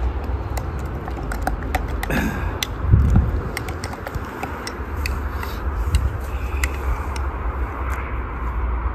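Metal spoon stirring halo-halo in a glass mug: scattered light clinks and scrapes of spoon against glass, over a steady low rumble.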